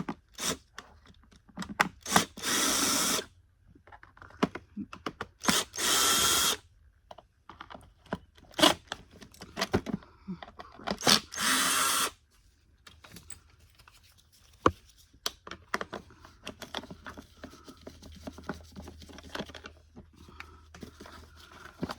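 Power drill-driver running in three short bursts of about a second each, backing out the screws that hold the motor in a Bissell CleanView vacuum. Between and after the bursts come sharp clicks and rattles of screws and plastic parts being handled.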